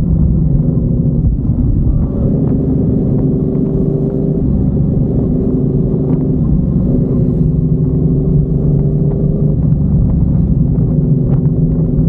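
Yamaha MT-10's 998 cc crossplane inline-four engine, breathing through an SC Project 70 mm carbon titanium exhaust, running at low revs while riding, with small rises and falls in pitch every couple of seconds.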